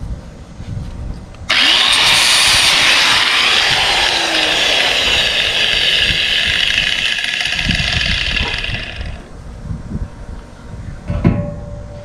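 Angle grinder with a sanding disc grinding the damaged end of a steel shaft. It switches on about a second and a half in, grinds steadily for about seven seconds, then winds down. A sharp knock follows near the end.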